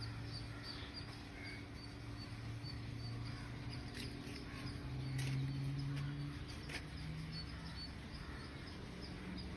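Faint outdoor ambience: a steady low hum under short high chirps that repeat about three times a second, with a few brief clicks.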